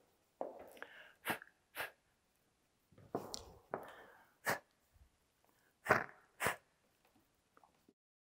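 A person blowing out candles: three rounds of puffs of breath, each a breathy rush ending in one or two short, sharp puffs.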